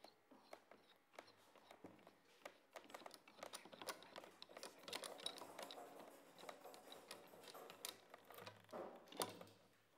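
Faint, irregular clicks and light knocks of steel F-clamps being handled and their screw handles tightened down onto a glued stack of wood laminations in a curved form.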